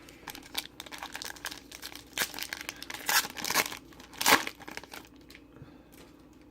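Plastic wrapper of a Panini Prizm trading-card pack being torn open and crinkled: a run of rustling crackles with a few louder ones around the middle, dying down about five and a half seconds in.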